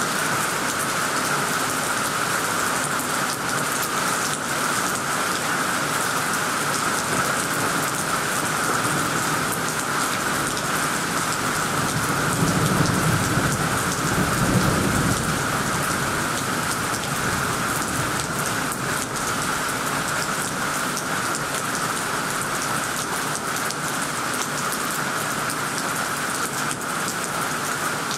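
Heavy rain pouring steadily onto tree leaves and a tiled roof. A low roll of thunder rumbles for a few seconds about halfway through.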